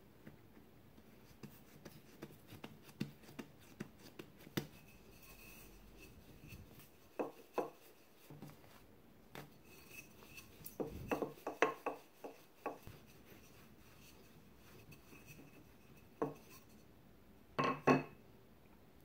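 Soft bread dough being handled and rolled flat with a wooden rolling pin on a floured countertop: scattered light taps and clicks, with a few clusters of louder knocks in the middle and near the end.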